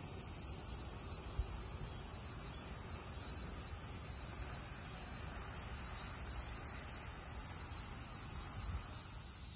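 A dense chorus of singing insects: one steady, high-pitched buzzing trill with no breaks, over a faint low rumble.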